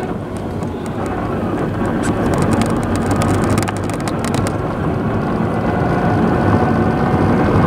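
Car cabin noise while driving on a wet road: a steady drone of engine and tyres on wet pavement. Scattered light ticks of raindrops hitting the windshield come mostly in the first half.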